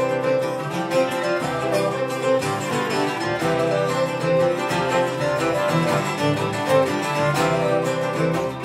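Irish traditional jig played live by uilleann pipes, fiddle, bouzouki and acoustic guitar together: a quick, continuous dance tune with the strings strumming the rhythm.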